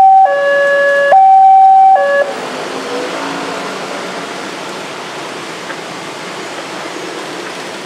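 Railway level-crossing warning alarm sounding a loud alternating high-low two-tone, which cuts off about two seconds in. After it comes the steady noise of motorcycles and cars passing over the crossing.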